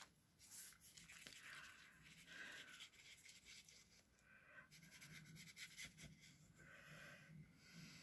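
Near silence, with faint soft rustling as a fine-tip glue bottle is drawn along the edges of paper.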